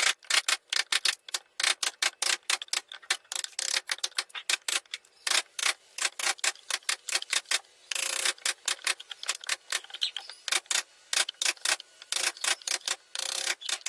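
Hand carving tools working wood: rapid, irregular sharp clicks and taps of blades cutting into the wood, with a longer scraping stroke about 8 seconds in and another near the end.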